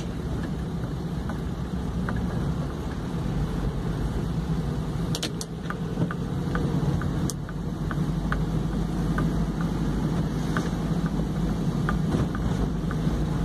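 Steady engine and wet-road noise heard from inside a moving vehicle's cab, with scattered light ticks.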